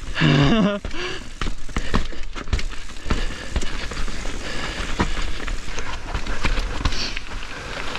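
Mountain bike riding over rough trail, rattling, with many irregular clicks and knocks as the tyres hit bumps.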